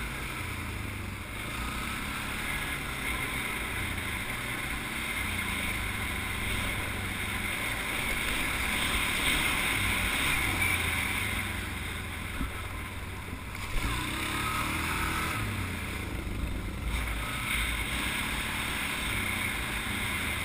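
The single-cylinder engine of a 2009 Suzuki King Quad 500 ATV running steadily while riding along a dirt trail, mixed with tyre and trail noise.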